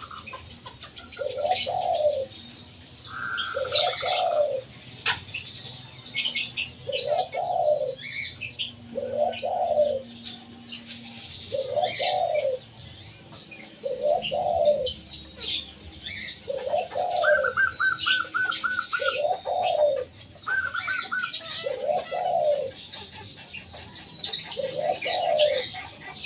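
A spotted dove giving a short single note over and over, about one every two seconds. Small birds chirp high above it and now and then give a short rapid trill.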